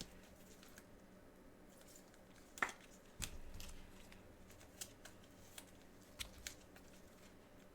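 Faint handling of trading cards and card packs: scattered light clicks and rustles as they are picked up and set down, with one sharper click a few seconds in.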